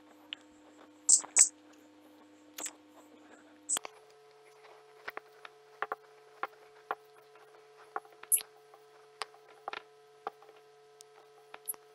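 Whiteboard marker squeaking and tapping on a whiteboard as grid lines are drawn and numbers written: scattered short taps with a few brief high squeaks, over a faint steady hum that steps up in pitch about four seconds in.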